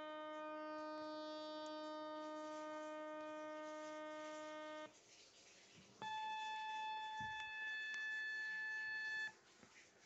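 Audio from a Kenwood TS-850S HF transceiver tuned to 26.785 MHz AM: a steady, constant-pitch buzzing tone rich in overtones for about five seconds. It cuts off, and about a second later a higher steady tone sounds for about three seconds before cutting off again. The uploader takes the signal for military radar in the 11-metre CB band.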